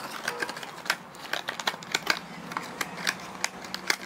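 Hands handling a packaged frog fishing lure, making irregular sharp clicks and rustles.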